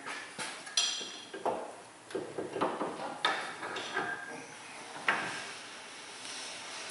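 Irregular metal clinks and knocks as a CV axle's end is worked back into a front wheel hub and steering knuckle by hand. The sharpest clank comes about a second in and rings briefly.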